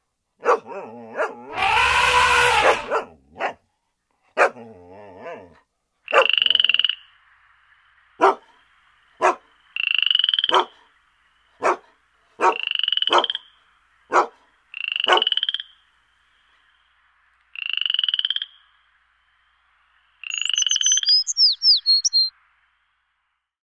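Added soundtrack of Apple Loops sound effects, not the drone. A long, loud call with many overtones comes about half a second in. After it, a call of about a second repeats roughly every two and a half seconds, with sharp clicks between, and high rising chirps come near the end.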